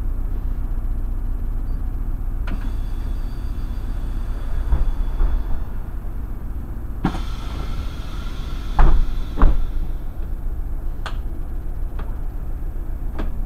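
Irisbus Crossway LE 12.8M city bus running, heard from inside as a steady low rumble. About halfway through a hiss starts, and two loud thumps follow shortly after, with a few sharp clicks scattered around them.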